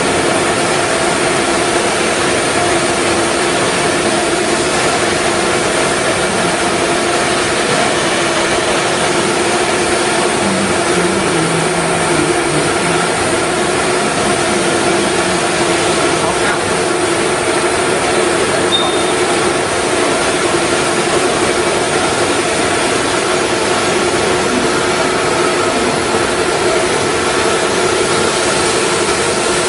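Five-axis CNC router cutting wood: a steady spindle whine with several held tones over even machining noise.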